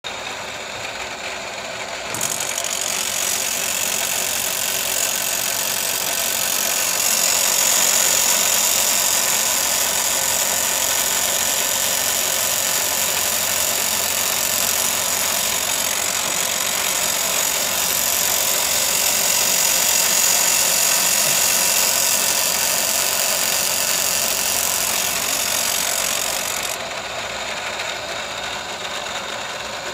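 Electric chainsaw-chain sharpening grinder running, its abrasive wheel grinding the chain's cutters to sharpen them: a loud, high grinding noise over the motor's steady whine from about two seconds in, dropping back to the motor alone near the end.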